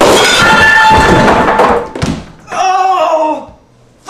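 A loud, sudden crash and clatter as a man goes through a spinning ceiling fan and its blades strike him, lasting about two seconds. It is followed by a man's cry that falls in pitch.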